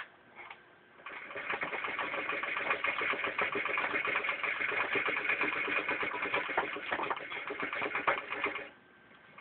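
1914 Singer No. 20 child's hand-crank chain-stitch sewing machine being cranked and stitching through denim: a rapid, steady run of fine clicks. It starts about a second in and stops suddenly near the end.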